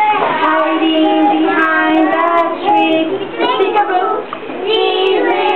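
A group of young children singing a song together in chorus, in held sung phrases.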